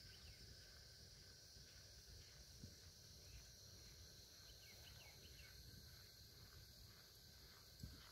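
Near silence: a steady, high-pitched insect chorus over a faint low rumble of outdoor noise.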